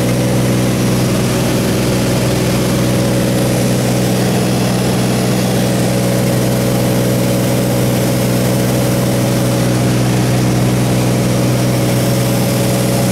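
Single-engine propeller plane's engine and propeller running steadily in cruise, heard from inside the cockpit as a constant low-pitched hum.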